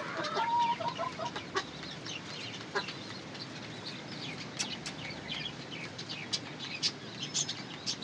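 A rooster clucking briefly about half a second in while it pecks grain from a hand, followed by many short, sharp high ticks and chirps scattered irregularly.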